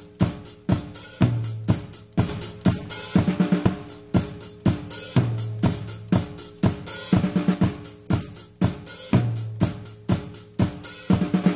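Drum kit playing a steady repeating groove of kick, snare, hi-hat and cymbal hits, the pattern coming round about every four seconds with a quick flurry of drum hits near the end of each turn.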